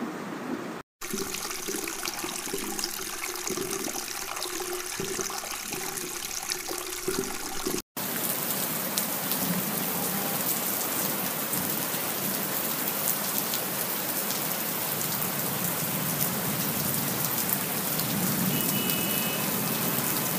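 Steady rain-like hiss with fine crackling, broken by two brief dropouts, about a second in and about eight seconds in; a little louder after the second.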